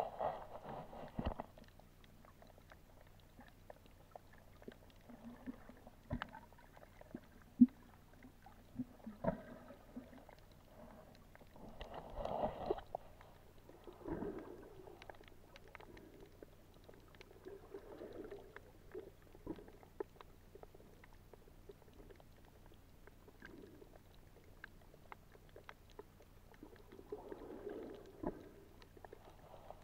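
Water movement heard underwater through a camera housing: a faint muffled background with scattered small clicks and crackles, and a few louder low swishing rumbles, the strongest about twelve seconds in and another near the end.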